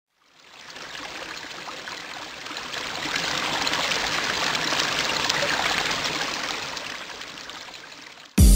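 Sound effect of trickling, flowing water that swells and then fades away. Dance music with a heavy beat cuts in suddenly at the very end.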